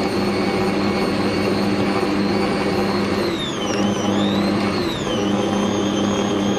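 Electric stand mixer running steadily, its beater kneading stiff kahk dough of flour, ghee and milk in a steel bowl: a motor hum with a high whine that dips in pitch a little past midway and then recovers.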